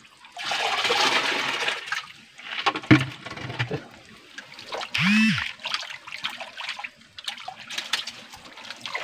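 Muddy creek water splashing and sloshing as a shallow pool is bailed out and groped through by hand, loudest as a rush of water in the first two seconds. A person's voice gives a short exclamation about five seconds in.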